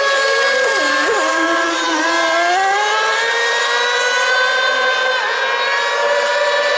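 Several small two-stroke engines of radio-controlled racing boats running at high revs together, their pitches overlapping; one rises steadily in pitch about two seconds in as that boat accelerates.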